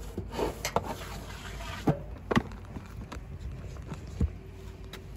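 A boxed package rubbing and sliding against the metal walls as it is pulled out of a parcel-locker compartment, with a few light knocks and clicks scattered through.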